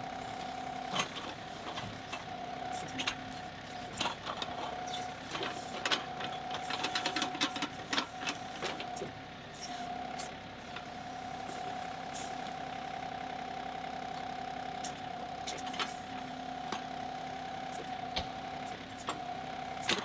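John Deere 2038R compact tractor's three-cylinder diesel running steadily, with a steady whine, as its backhoe bucket digs at a small stump. Scattered clicks and knocks of the bucket against roots and dirt, thickest about a third of the way in.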